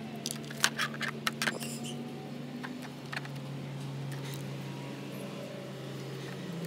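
A quick run of sharp clicks and small knocks from hands and tools working wires into a speaker enclosure, with a few fainter ticks later, over a steady low hum.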